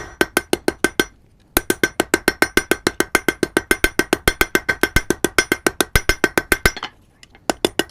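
Blacksmith's hammer striking hot iron flat stock on the face of an anvil in a fast, even rhythm of about seven blows a second, each with a metallic ring from the anvil, drawing the bar out into a tapered point. The hammering pauses briefly about a second in, stops near the end, then resumes with a few more blows.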